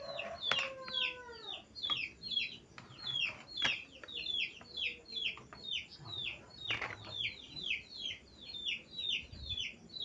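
A steady run of short, high, falling bird chirps, about three or four a second. A few knocks and scrapes come from rice being scooped with a plastic paddle, the loudest about three and a half and seven seconds in.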